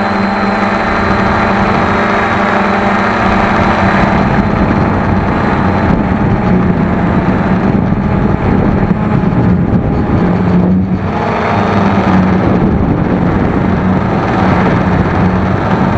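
Cheerson CX-20 quadcopter's brushless motors and propellers humming steadily in flight, heard from the camera mounted on the drone, mixed with wind noise on the microphone.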